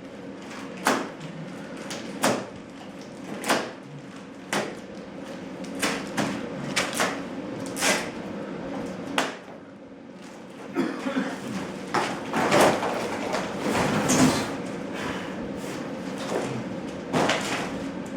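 Irregular knocks and clanks of garage door hardware, hinges and screws being handled against the door panels, with a busier stretch of rattling about two thirds of the way through, over a faint steady hum.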